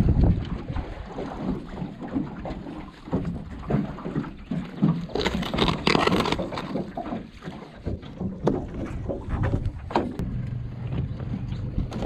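Wind on the microphone and scattered knocks of gear being handled in a flat-bottom boat while a jug line is set, with a louder rushing splash of water about five seconds in.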